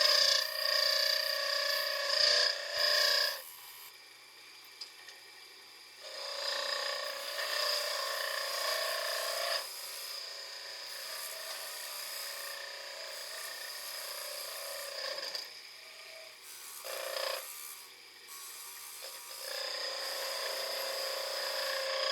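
Wood lathe spinning a piece of scrap wood while a hand-held improvised tool scrapes at it, giving a steady whine over a rasping scrape. The sound drops away briefly a few times as the tool comes off the wood.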